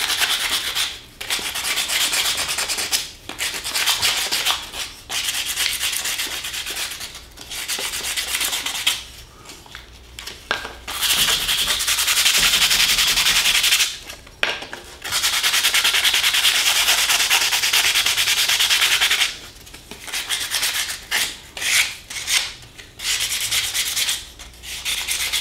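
Sandpaper rubbing by hand on the edge of a scroll-sawn wooden disc, a rasping hiss in runs of back-and-forth strokes with short breaks and two longer unbroken stretches midway. The sanding is flattening a nub left where the cut started and stopped, and knocking off the hard edges.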